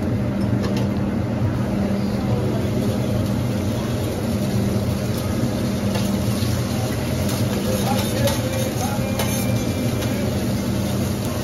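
Metal spatula and utensil scraping and tapping on a steel teppanyaki griddle as eggs are scrambled, with scattered clicks. Under it runs a steady low mechanical hum.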